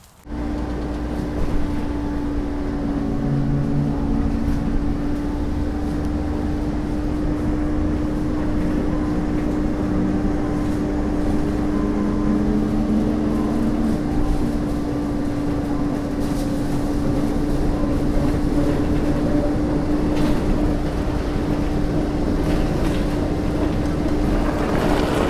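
A steady low rumbling drone with one strong held humming tone, starting suddenly just after the opening and running on unchanged.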